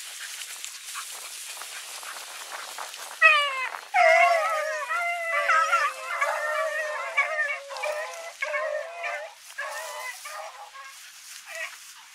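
Rabbit-hunting dogs baying and howling. Long drawn-out calls start about three seconds in, several voices overlapping, then break into shorter, spaced calls. Grass and brush rustle before the calls begin.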